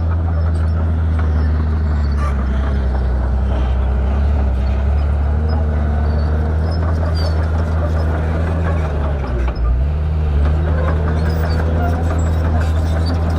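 Bulldozer's diesel engine running steadily at a loud, even pitch, with a brief drop in engine speed about nine and a half seconds in before it picks back up.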